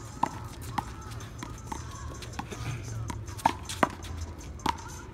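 One-wall handball rally: a small rubber ball struck by hand and smacking against the wall in a string of sharp hits at uneven spacing, the loudest two close together a little past halfway.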